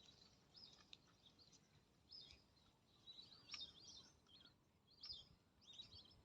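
Faint bird chirps: many short, quick calls repeated irregularly throughout, a few slightly louder ones around three and a half and five seconds in, over a low background hiss.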